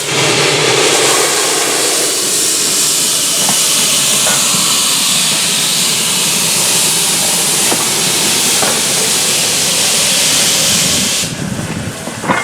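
Steam locomotive No. 1310, an NER H Class (LNER Y7) tank engine, letting off a steady hiss of steam that cuts off abruptly about eleven seconds in.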